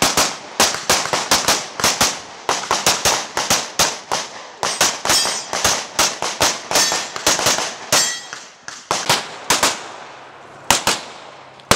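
Open-division competition pistol fired in fast pairs and strings of shots, with short breaks between strings as the shooter moves between targets. Near the end there is a brief pause, then another quick string.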